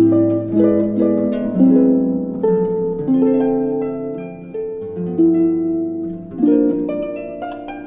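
Background music: a plucked-string instrument plays a slow melody over chords, each note starting sharply and ringing on.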